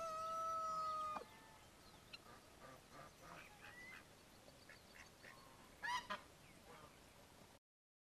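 Farmyard fowl calling: a rooster's crow ends on one long held note about a second in, followed by scattered short clucks and calls from hens and ducks, with a louder squawk about six seconds in. The sound cuts off suddenly near the end.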